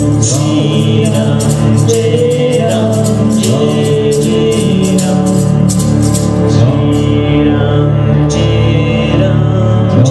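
Live music: a woman sings a chant-like melody over strummed acoustic guitar, with a steady low drone held underneath. The crisp strumming strokes drop out briefly about seven seconds in, then come back.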